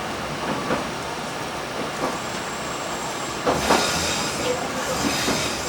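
Akita Nairiku Railway AN-8800 diesel railcar running along the line: a steady rolling noise with wheels clicking over rail joints now and then, brighter and louder for a moment about three and a half seconds in.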